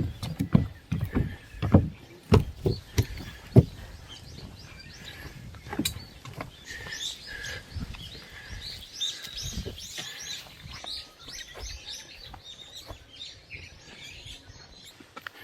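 Small birds chirping and twittering in quick repeated calls, taking over after the first few seconds. Before that comes a run of low thumps about twice a second.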